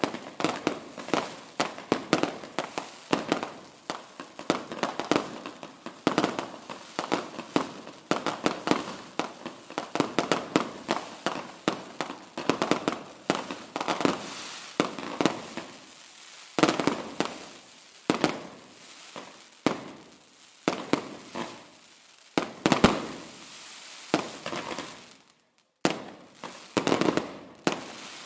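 Fireworks going off in a rapid run of bangs and crackling bursts, thinning after about halfway into separate loud reports with short gaps between them.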